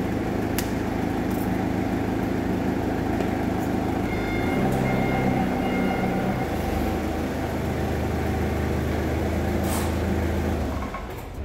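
A large engine running steadily, its pitch changing about halfway through.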